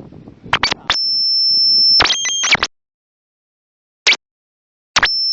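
A high, steady electronic beep tone broken by sharp clicks. It cuts out to dead silence for about two seconds midway, with a single click in the gap, then the tone returns near the end.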